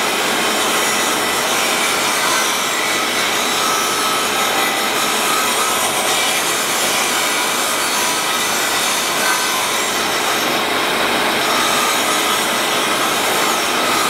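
Grinding wheel in a machine spindle running steadily against the face of an automatic-transmission bell housing, a continuous even hiss of the wheel taking metal off across the whole surface.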